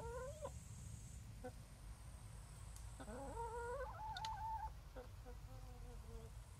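Chickens calling softly: a short wavering call at the start, a longer wavering call about three seconds in, then a few quieter, lower clucks.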